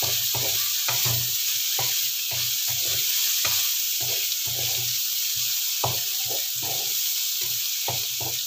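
Sliced bitter melon with onion and chilli sizzling in oil in a wok, stirred with a wooden spatula: a steady frying hiss under quick, repeated scrapes and knocks of the spatula against the pan.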